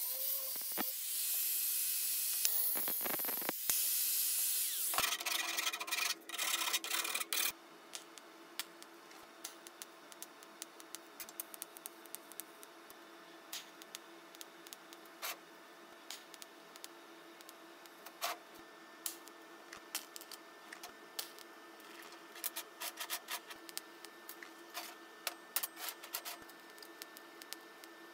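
Angle grinder with a thin cutting disc cutting through sheet metal, loud and high-pitched, with a short break about three seconds in and stopping around seven seconds in. Then welding on the metal pieces: a faint steady hum with scattered short clicks and crackles.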